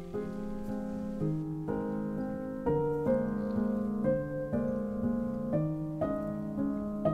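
Gentle background piano music, a new note or chord every half second to a second.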